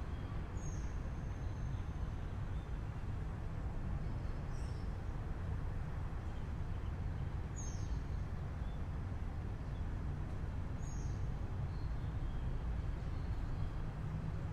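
Morning city ambience through an open window: a steady low rumble of distant traffic, with a bird giving four short high chirps a few seconds apart, each dropping slightly in pitch.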